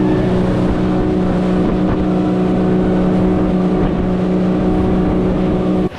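Yamaha outboard motor running steadily as the boat travels under way, its even engine tone over a rushing wash of wind and water. The sound cuts off abruptly near the end.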